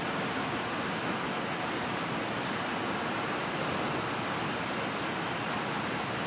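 Steady, even hiss with no pitch, rhythm or breaks.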